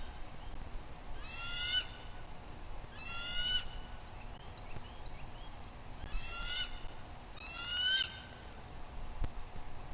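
Bald eagle giving four high, rapid chittering calls a second or two apart, each about half a second long.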